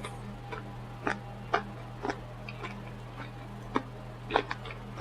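Close-up eating mouth sounds: irregular short smacks and clicks of chewing, one or two a second, over a steady low hum.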